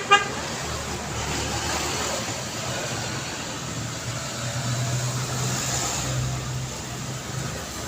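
City road traffic: a steady wash of passing cars, opening with a short car horn beep. Around the middle, a vehicle's low engine drone comes in and runs until near the end.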